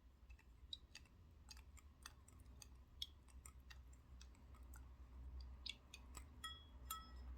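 Near silence with faint, scattered small clicks and ticks, a few of them with a short faint ring near the end.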